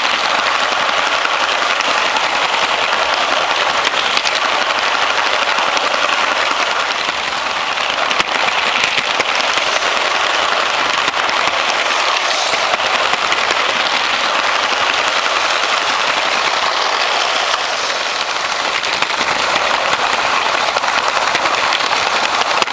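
LEGO trains running on plastic track close by: electric train motors whirring and wheels rattling over the rails, a steady dense clatter.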